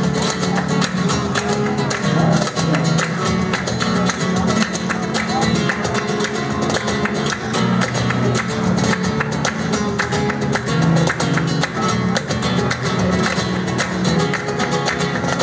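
Flamenco rumba played instrumentally: an acoustic flamenco guitar strumming a fast rhythm, with hand clapping (palmas) and cajón making dense sharp hits on the beat.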